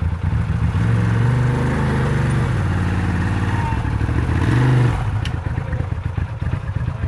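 Side-by-side UTV engine revving up under load on a rock ledge, climbing steadily to a peak about five seconds in, then dropping back abruptly to an uneven idle.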